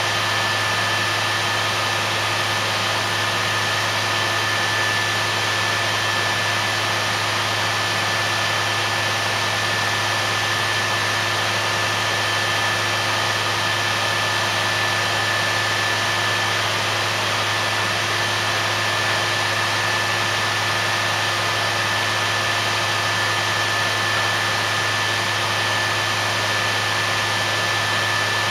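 Well-drilling rig running steadily while it drills the bore: a constant machine drone with a low hum and a high, even whine.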